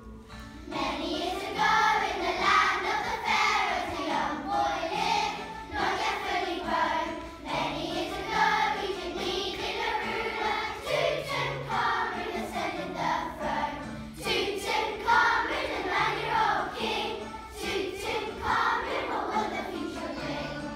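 A group of young children singing a song together, starting about a second in, over a low instrumental accompaniment.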